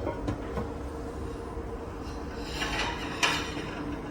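Breakfast-room clatter: a few light clinks of dishes and cutlery, the sharpest a little past three seconds in, over a steady low hum.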